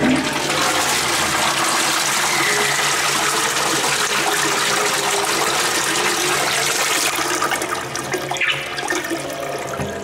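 Toilet flushing: a long rush of water that eases off after about seven seconds.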